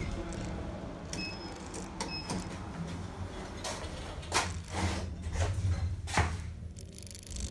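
ThyssenKrupp Evolution Blue elevator doors sliding over a steady low hum, with footsteps and a few sharp knocks in the second half.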